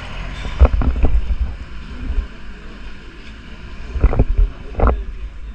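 Wind buffeting the camera microphone, a steady rumbling noise with loud low gusts about half a second in and again around four seconds in.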